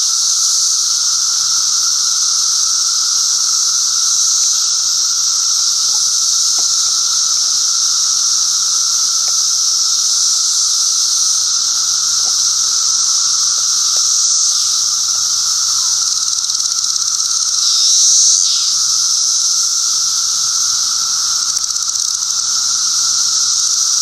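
Loud, steady chorus of Brood XIII seventeen-year periodical cicadas: a dense high-pitched buzz with a lower droning tone running beneath it, more than one kind of song mixed together. The chorus swells briefly about three quarters of the way in.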